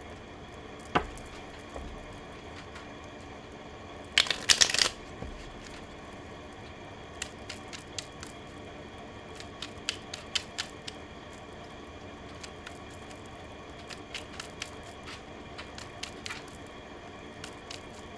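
Oracle cards being handled and shuffled: a single knock about a second in, a short rapid flurry of card flicks around four seconds, then scattered light clicks of cards being moved and laid down.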